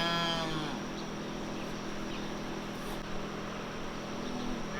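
A young dairy calf mooing, the call tailing off and ending under a second in. After it comes a steady low background hum.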